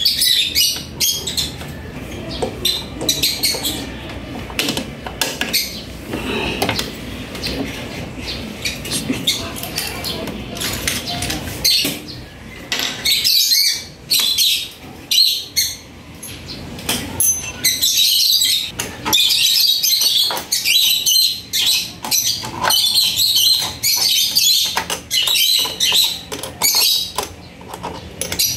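Irregular metal clicks and clinks from hands and tools working a scooter's rear shock absorber onto its lower mount, coming thicker and sharper in the second half.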